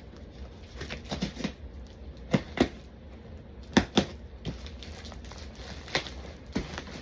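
A shipping package being opened by hand: scattered sharp taps and clicks with light rustling as the packaging is pulled apart, the loudest taps in two pairs a few seconds apart.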